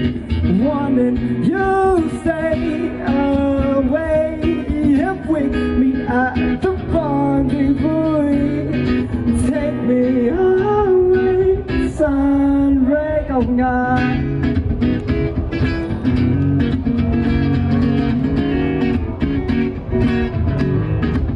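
Live acoustic guitar and male vocal: a singer strumming an acoustic guitar and singing. The singing stops about two-thirds of the way through, leaving the guitar playing on its own.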